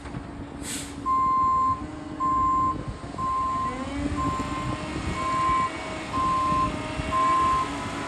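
Concrete mixer truck's reversing alarm beeping about once a second, starting about a second in, over the truck's engine running as it backs up.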